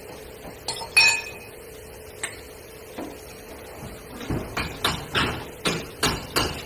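A metal hand tool clinks once with a short ring about a second in. After a lone knock, a quick run of about ten sharp metallic knocks starts past the four-second mark, two or three a second.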